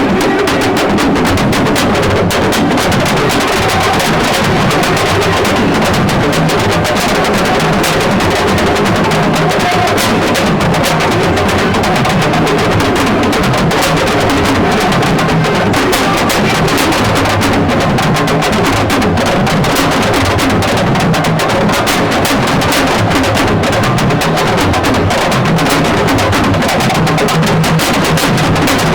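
Music driven by dense, fast drumming that keeps a steady, unbroken rhythm.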